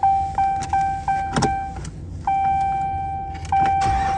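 Dashboard warning chime of a 2017 Ram 1500 sounding in quick beeps, about three a second, then holding one steady tone from about halfway. Near the end the starter begins cranking the 5.7 V8 for a start after sitting in the auction yard.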